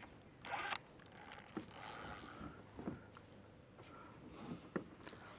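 Faint scattered clicks and knocks of a kayak and its fittings being shifted and handled, with a short rustle about half a second in.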